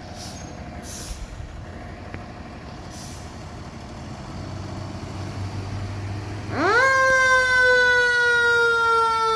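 Fire truck engine running and pulling away, growing louder, then about two-thirds of the way through its electronic siren switches on, rising quickly and holding a steady wail.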